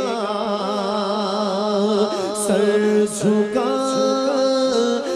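A man singing an Islamic devotional song into a microphone. He holds long notes that waver and bend in an ornamented melody, with no steady beat.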